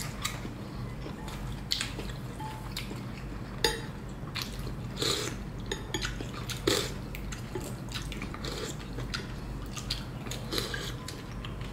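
Two people eating pho: slurping rice noodles and broth and chewing, in irregular short wet sounds, a few louder slurps about three and a half, five and six and a half seconds in.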